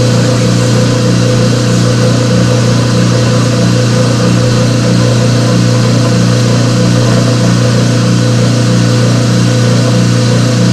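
Electric stirring apparatus running steadily as it agitates water dosed with lemon-peel flocculant: a constant motor hum with a regular pulsing. This is the mixing stage in which flocs form before settling.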